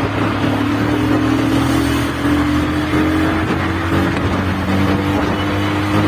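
Bajaj Pulsar 220F's single-cylinder engine pulling steadily under way, its pitch rising slowly and evenly.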